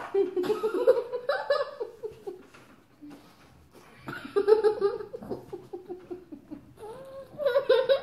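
Laughter in three bouts: at the start, about four seconds in, and again near the end, each a run of quick pulsing laughs.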